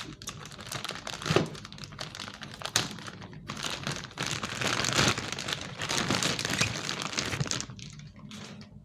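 Packaging crinkling and rustling as a new printer fuser unit is unwrapped, in a run of irregular handling noises that is busiest past the middle.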